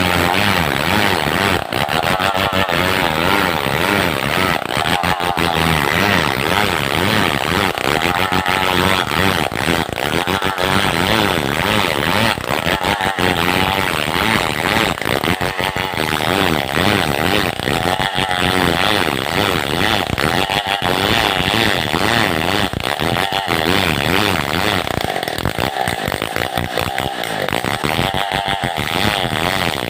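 Two-stroke chainsaw running at high revs while ripping a felled madang log lengthwise into beams. The engine pitch wavers slightly as the bar cuts, without a break.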